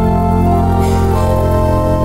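Organ playing a slow hymn in long held chords over deep bass notes, moving to a new chord about a second in.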